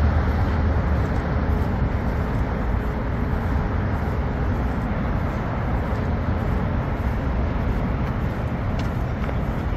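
Steady traffic noise from passing cars on a nearby road, with a heavy low rumble and no distinct events.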